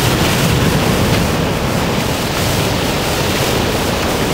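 Ocean surf: waves crashing and washing in, a steady rushing noise with no single crash standing out.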